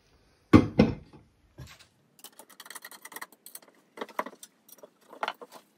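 Two dull knocks near the start, then small metal hardware clinking and rattling as it is handled, with a few sharper clicks near the end.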